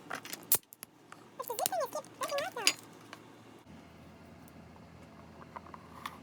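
Small clicks and crinkles of a blind-pack bag being handled and opened by its zip seal, with a brief gliding voice sound, like humming, about a second and a half in.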